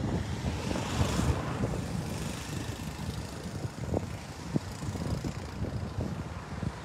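Wind buffeting the microphone in an uneven low rumble with a hiss over it, gusting up about a second in, with a few sharp taps later on.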